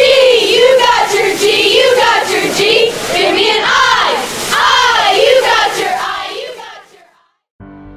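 A squad of female cheerleaders chanting a cheer in unison, loud, answering a 'Give me a G!' call. The chant fades out about seven seconds in, and music begins just at the end.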